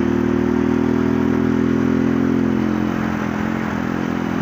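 Motorcycle engine running at a steady speed while being ridden, over a hiss of wind and road noise; the engine note dips slightly about three and a half seconds in.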